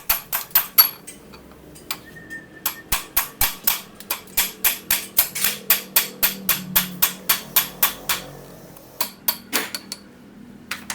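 Hammer striking a punch to drive the old steering-head bearing cup out of a 70cc motorcycle's frame, working both sides so it comes out straight. The metallic strikes come about three a second, with two short pauses.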